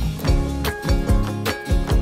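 Background music with a steady beat, about two strokes a second.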